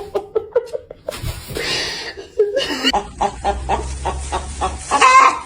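A person laughing, quick short chuckles several times a second, broken about a second in by a stretch of hiss.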